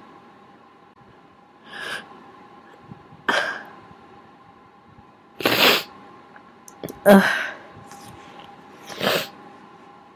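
A woman sneezing in a run of five loud bursts one to two seconds apart, the strongest two near the middle. The sneezes are induced by tickling her congested, running nose.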